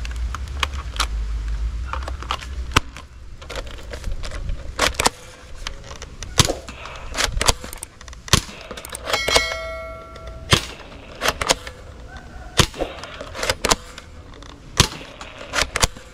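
Plastic toy blaster being handled and worked: a long run of sharp clicks and clacks at irregular intervals, with a brief tone about nine seconds in.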